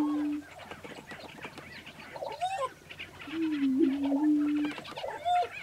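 Male prairie chickens calling on a lek. A low held hoot sounds at the very start, and a longer low, wavering display call runs from about three and a half seconds to nearly five. Short higher calls and cackles are scattered throughout.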